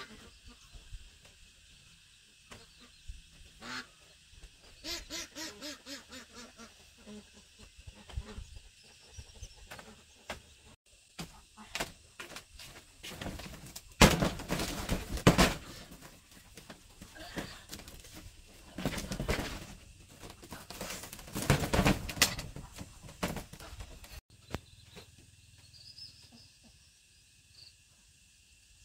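Domestic fowl calling in scattered bouts: a quick run of calls about five seconds in, then louder bouts around the middle.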